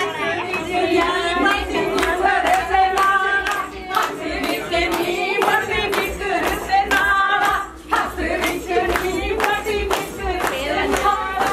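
A group of voices singing together over a steady beat of sharp strikes, about three a second.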